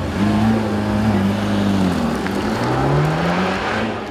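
Supercar engine accelerating hard: its pitch holds high, drops about halfway through, then climbs again.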